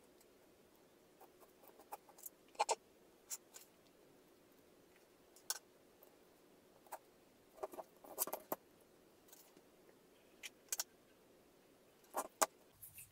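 Scattered small clicks and light knocks, a dozen or so at irregular intervals, as hands handle the wires and plastic cell holders of an 18650 battery pack with a BMS board and turn it over on the work surface.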